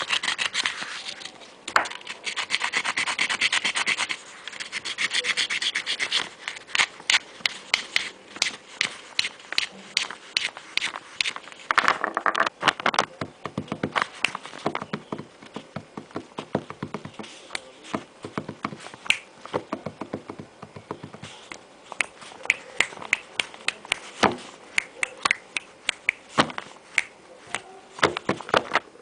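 Something rubbed and scratched against a surface: a rubbing hiss for the first few seconds, then a long irregular run of short, sharp scratchy clicks.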